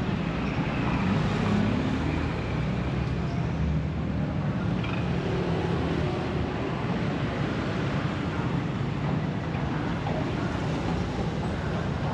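Steady road traffic: cars and motorbikes passing on a busy street.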